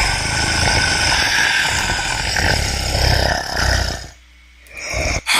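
A recorded monster voice sound effect playing back from a Flash button. It cuts off about four seconds in, followed by a brief sound and a sharp click just before the end.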